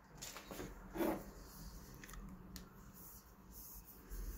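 Faint handling sounds of plastic smart light bulbs being picked up off a desk: light rustles and taps, with a short louder sound about a second in and a sharp click a little later.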